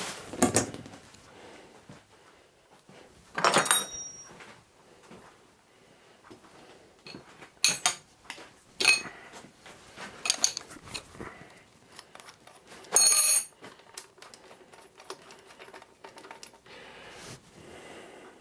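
Separate metallic clinks and knocks of a spanner and steel parts against a cast-iron milling machine vise as it is unbolted for dismantling, several with a short ring. The longest ringing clatter comes about 13 s in.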